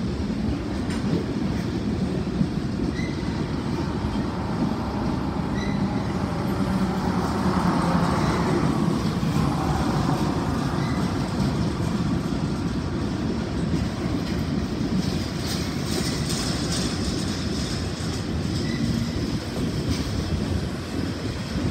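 Union Pacific freight cars rolling past in a long train: a steady low rumble of steel wheels on the rails, with brief faint squeaks now and then and a patch of rattling about three-quarters of the way through.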